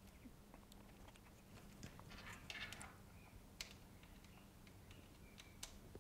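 Near silence with a faint steady low hum, a few light clicks and a brief soft scrape about two seconds in: gloved hands handling the opened iPhone XS Max's screen, housing and charging cable.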